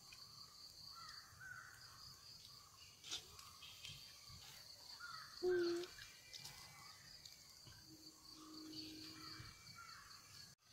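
Faint outdoor evening ambience: a steady high-pitched insect drone with crows cawing and scattered bird calls, and a brief low note about halfway through.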